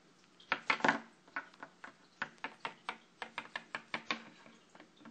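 Littlest Pet Shop plastic figurines tapped along a wooden surface as they are walked by hand: a quick run of small hard knocks, loudest and thickest about half a second to a second in, then about four taps a second.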